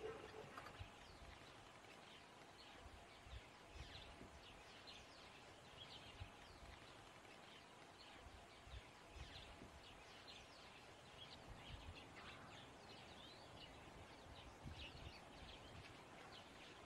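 Faint chirping of many small birds, short high calls coming thick and fast, over a quiet background hiss.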